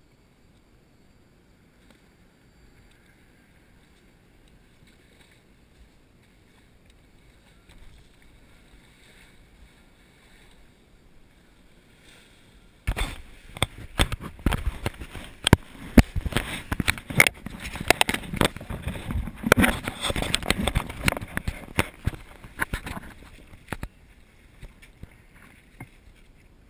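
Elephant wading through a shallow river. A faint low rumble first, then about halfway in a sudden onset of loud, irregular splashing and sloshing of water around its legs, which thins out near the end as it climbs out.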